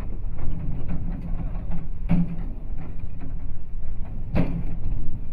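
Excavator's diesel engine running steadily, with two sharp knocks about two seconds apart as the bucket strikes the asphalt.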